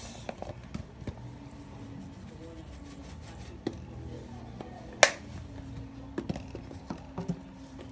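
Light clicks and taps of a spice shaker bottle and a glass bowl being handled, with one sharper click about five seconds in, over a faint steady hum.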